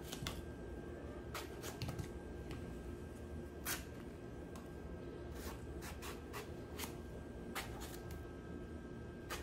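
Knife cutting through eggplant held in the hand over a bowl of salted water: faint, irregular clicks and cuts, one a little louder about four seconds in, over a faint steady hum.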